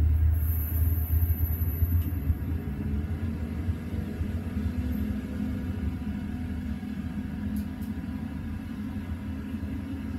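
Diesel High Speed Train (InterCity 125) power car passing and drawing away: a low rumble, loudest at the start and fading as the train recedes, with a steady hum coming in about three seconds in.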